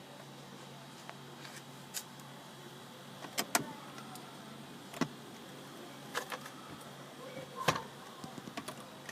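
Scattered sharp clicks and taps, a dozen or so at irregular intervals, over a faint steady background hum.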